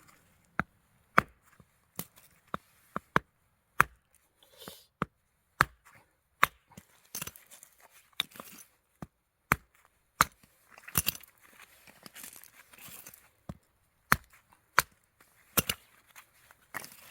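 Firewood being split into kindling with a chopping blade: a long series of sharp chopping strikes, about one a second and sometimes two in quick succession, with brief splintering and cracking as pieces come apart.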